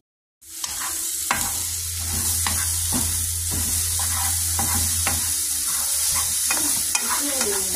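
Scrambled eggs and sausage sizzling in a frying pan while a wooden spoon stirs them, knocking and scraping against the pan again and again.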